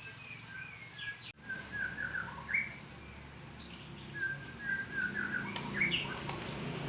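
Small songbirds chirping and twittering in short, repeated phrases of gliding notes.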